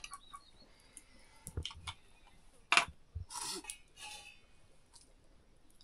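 Scattered clinks and knocks of dishes and serving utensils as a meal of rice and lentils is dished out, with the loudest clink a little under three seconds in and a short scrape just after it.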